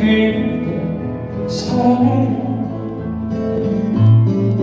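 Live slow ballad with piano accompaniment, in a gap between sung lines; held notes continue, with a strong low piano note about four seconds in.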